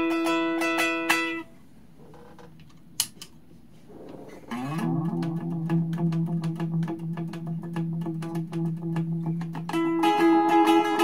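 Electric guitar played through a Hungry Robot Dark Moby delay pedal into a Marshall tube amp, with the delay repeats trailing each note. Picked notes stop about a second and a half in. After a quiet gap broken by a single click, a low note swells in with a short upward glide and is held for several seconds. Picked playing resumes near the end.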